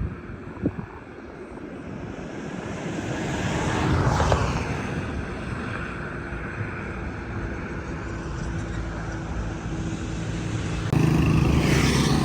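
A motor vehicle passing, its engine and road noise building to a peak about four seconds in and then falling away. A steady engine hum follows, and it gets suddenly louder near the end.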